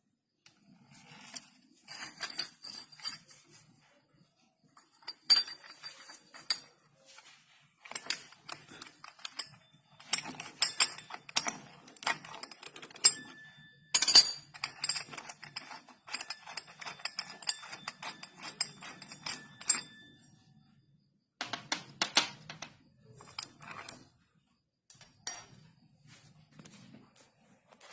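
Metal scooter CVT parts and hand tools clinking and clattering in irregular bursts of sharp knocks and clicks, with a brief metallic ring from a struck part here and there, while a Yamaha Nouvo's CVT is dismantled.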